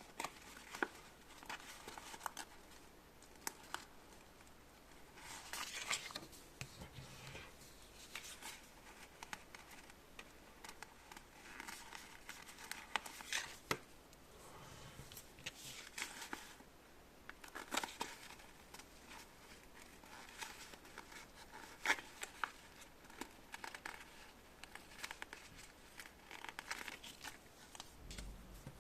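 Quiet handling sounds: intermittent crinkling rustles and small sharp clicks, irregularly spaced, as of plastic pieces or packaging being handled.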